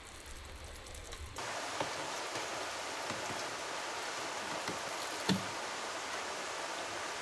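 Valley stream rushing steadily, setting in about a second and a half in, with a soft knock about five seconds in.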